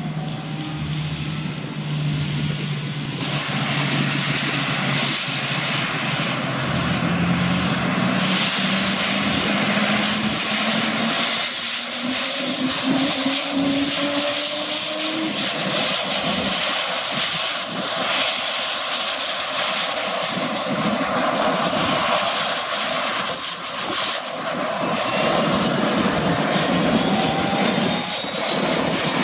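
Agusta A109E Power helicopter's twin turboshaft engines starting up, with a turbine whine rising steadily in pitch as the main rotor winds up to speed. Further rising whines join in the last few seconds.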